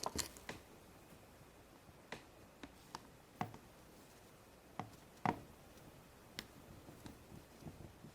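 Faint, scattered soft taps and clicks of hands handling Play-Doh pieces on a table, pressing a cut strip onto a Play-Doh egg, about a dozen irregular ticks with a few more close together near the end.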